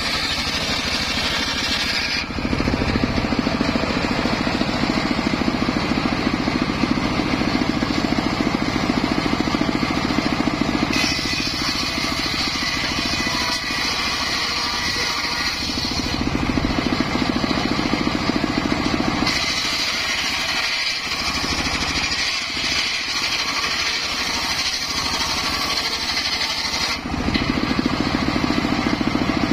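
Homemade engine-driven circular saw bench ripping a large acacia log into boards: the engine runs steadily under load while the spinning blade cuts the wood. The sound changes several times between a deeper, heavier run and a higher, hissier one as the blade goes in and out of the wood.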